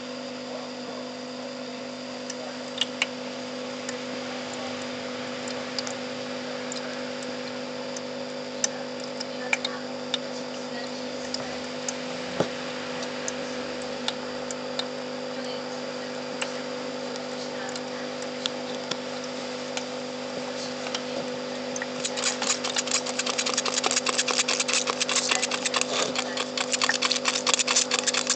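A steady electrical hum with scattered light clicks. About three-quarters of the way in, a fast mechanical ticking rattle starts up and grows louder.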